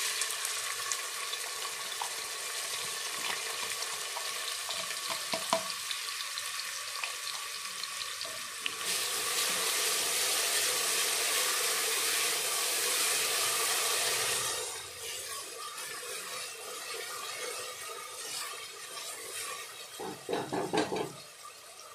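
Chopped onions sizzling in hot oil in a pressure cooker, stirred with a wooden spatula. The sizzle gets louder about nine seconds in and eases off again about five seconds later.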